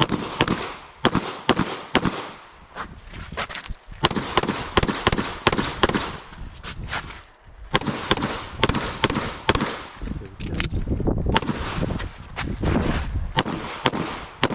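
Pistol fire during a timed IPSC stage, from a Walther Q5 Match SF. Many sharp shots come mostly as quick pairs, with a few short breaks between strings for moving or reloading.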